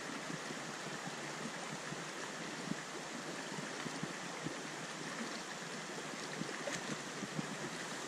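Small mountain stream running over rocks, a steady, even rush of water.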